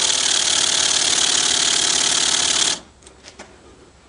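Small brass twin-cylinder, double-acting oscillating engine running on compressed air, with a steady hiss of exhausting air over its rapid mechanical clatter. About three quarters of the way in it cuts off suddenly, leaving a few light clicks.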